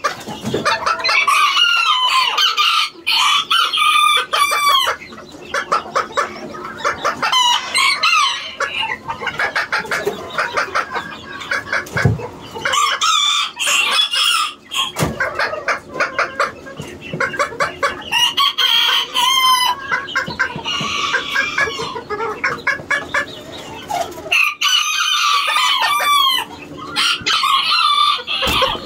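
Several roosters crowing again and again, their crows overlapping, with clucking between the crows.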